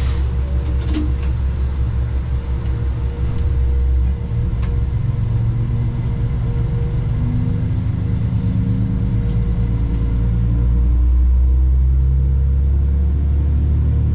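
Diesel engine of a KiHa 120 railcar running under power, heard from inside the car. A steady low drone carries a higher note that climbs slowly through the middle, with a few sharp clicks early on.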